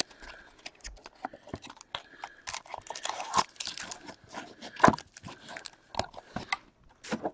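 Trading-card hobby box and its foil-wrapped packs being handled and pulled out: irregular crinkling and rustling of packaging, with scattered sharp crackles and one louder one about five seconds in.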